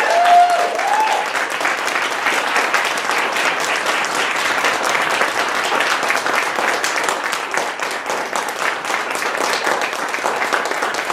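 Audience applauding steadily after a talk, with a few voices whooping in the first second.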